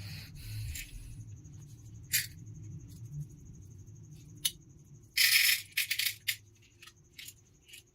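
Scattered sharp clicks, with a brief clatter about five seconds in followed by a quick run of clicks, over a low steady hum.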